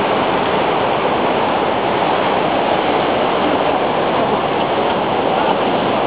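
Waterfall pouring down a broad sloping rock face into a pool: a steady, even rush of falling water.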